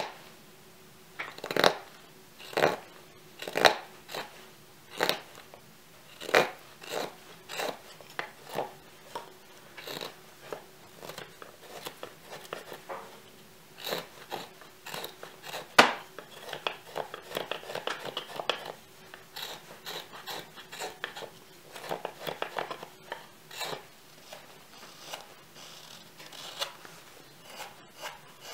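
Yakut knife slicing shavings from a raw (green) birch wood mug: a series of short, crisp cuts about one a second, with a run of longer drawn cuts past the middle.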